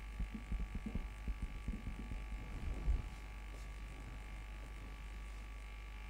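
Soft, irregular taps and knocks of a marker writing on a whiteboard, stopping about three seconds in. Under them a steady electrical hum with a faint high whine.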